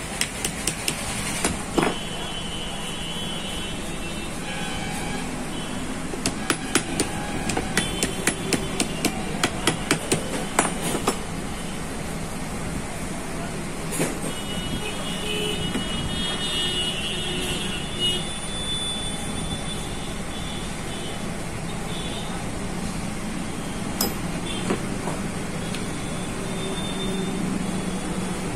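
Rapid light metal-on-metal taps from a spanner striking a screwdriver wedged into a car AC blower motor's housing to open it. The taps come in two quick runs, at the start and from about six to eleven seconds in, then as a few single knocks over a steady background noise.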